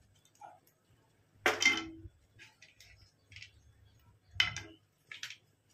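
A few light clinks and taps as cashew nuts are added to a nonstick frying pan of ghee. The loudest comes about a second and a half in, another near four and a half seconds, with fainter ticks between.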